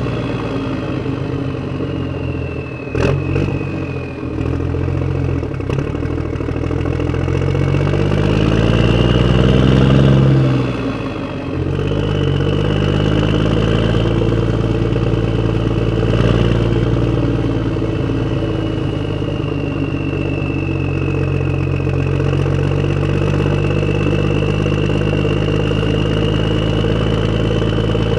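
Motor vehicle engine running steadily, with a sharp knock about three seconds in. The revs rise for a couple of seconds, drop sharply, and the engine runs on evenly, with a high whine drifting up and down over it.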